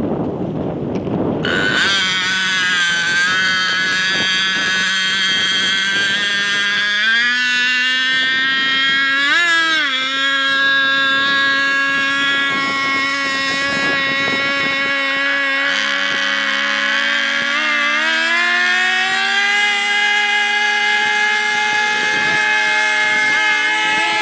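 Several model racing planes' small two-stroke glow engines are started one after another and run at high revs, a buzzing whine with many overtones. The first catches about a second and a half in, after a moment of wind noise. More engines join at a higher pitch around seven seconds and again near sixteen to eighteen seconds, with a brief rev near ten seconds.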